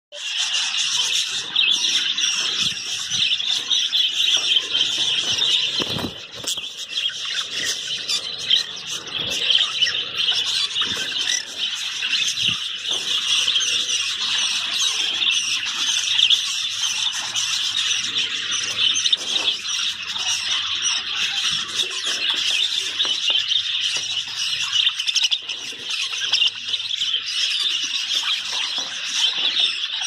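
Many budgerigars chattering and chirping together in a steady, continuous chorus.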